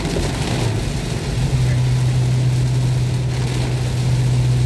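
Car cabin while driving in heavy rain: a steady rush of rain and wet-road noise. About a second and a half in, a steady low drone comes in and holds.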